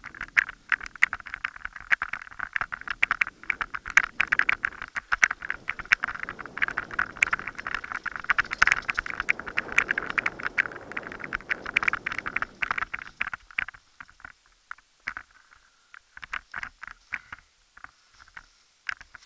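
Mountain bike clattering down a rough dirt forest trail: a fast, dense rattle of clicks from the chain and frame over tyre rumble on the dirt. About two-thirds of the way through the rumble drops away and the clicks thin out to scattered ticks as the bike slows to a stop.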